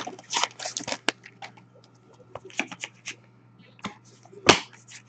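Foil card-pack wrappers crinkling and trading cards being handled and slid against each other: scattered short rustles and clicks, with one louder crinkle about four and a half seconds in.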